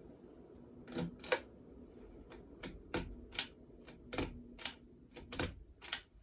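Lasko 3600L ceiling fan motor humming steadily, with a dozen sharp, irregular clicks and taps starting about a second in.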